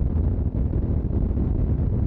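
Steady wind rush buffeting the microphone on a moving Aprilia motorcycle, with the engine's low drone underneath.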